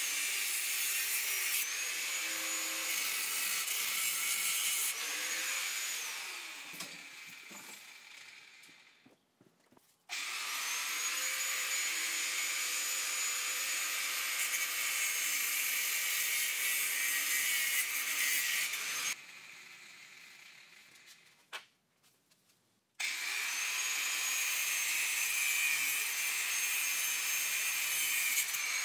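Handheld power tool cutting through a freezer's refrigerant lines, its motor whining in three long runs that fade away twice for a few seconds between. The whine climbs in pitch each time the tool starts.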